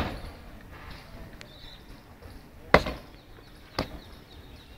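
Boots stamping on a concrete parade ground during foot drill: two sharp stamps about a second apart, nearly three seconds in, the second one fainter.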